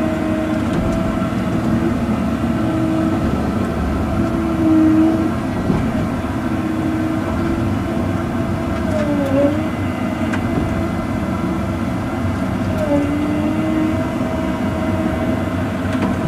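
Cat 309 mini excavator's diesel engine and hydraulics running steadily under working load while pulling stumps. The pitch sags briefly twice, about nine and thirteen seconds in, as the machine lugs.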